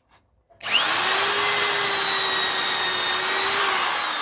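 Ryobi 210 W corded electric drill switched on about two-thirds of a second in: its motor whines up to speed and runs steadily. Near the end it is released, and the whine falls in pitch as the motor coasts down.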